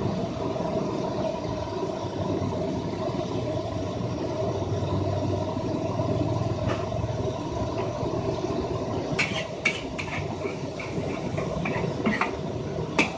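A steady low rumble, with a run of sharp metal clinks from about nine seconds in, typical of a spatula striking a wok while fried rice is stirred.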